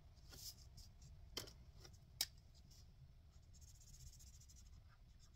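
Near silence with faint handling sounds: a few soft taps and rustles of banknotes and a card, then a felt-tip marker scratching on the card for about a second, colouring in a box.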